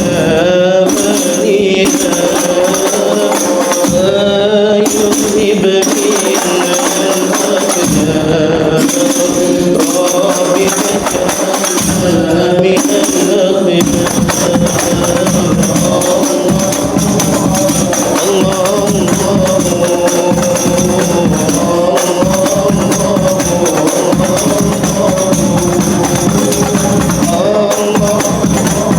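Hadroh ensemble playing: rebana frame drums with jingles keep a steady rhythm under a voice singing a sholawat melody.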